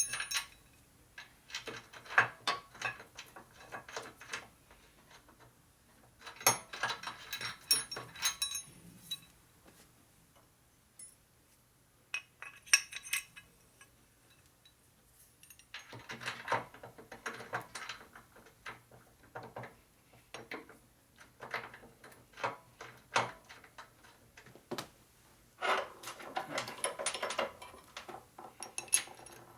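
Small metal parts clinking and rattling as they are handled and fitted together, in several bursts of clicks with quiet pauses between.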